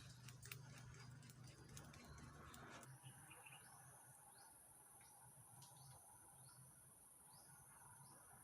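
Faint, quiet night-time ambience of insects: a steady high-pitched cricket-like trill starts about three seconds in, with short chirps repeating below it.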